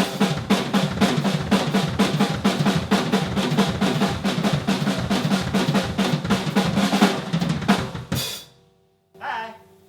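Drum kit played in a fast, steady run of snare and drum strokes for about eight seconds, ending on a cymbal crash that rings out and fades.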